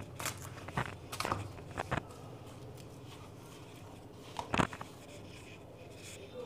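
A few short knocks and clicks from a paper-lined metal sweet box being handled: a cluster in the first two seconds, then a louder double knock a little after the middle.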